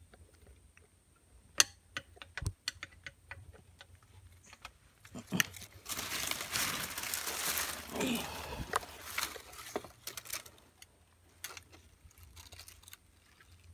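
Dry banana leaves and stalks rustling and crackling while a freshly caught tilapia is handled among them, with scattered sharp clicks and taps, a loud snap about a second and a half in, and a longer stretch of dense rustling about six to eight seconds in.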